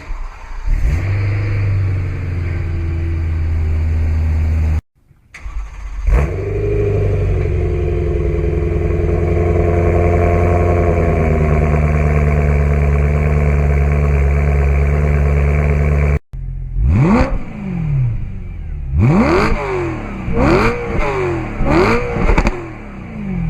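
BMW E92 M3's V8 exhaust in separate clips. The engine starts and idles, then starts again with a fast idle that settles lower a few seconds later. After that come five or six quick throttle blips, each revving up sharply and dropping back.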